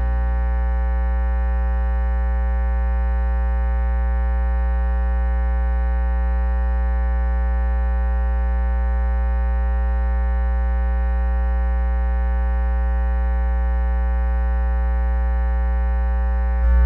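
Steady, loud electrical hum with a buzzy stack of overtones on a NOAA weather radio broadcast. It is dead air: the forecast audio has dropped out and the station is failing off the air. A short louder pop comes near the end.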